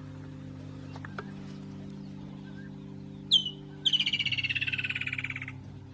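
Wild animal calls over a steady low drone: a sharp chirp a little past halfway, then a rapid pulsing trill that slides down in pitch for about a second and a half.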